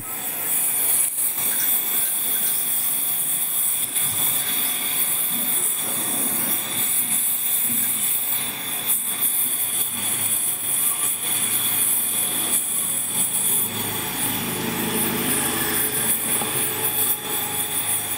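Gas welding torch flame hissing steadily as it heats and welds the metal of a scooter's front mudguard clamp.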